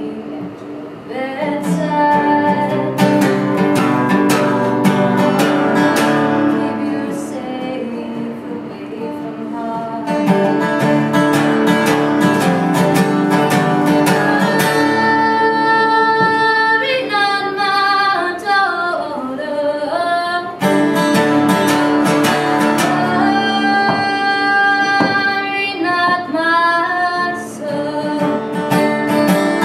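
A woman singing to a strummed steel-string acoustic guitar. Her voice slides down through a long falling run about two-thirds of the way through.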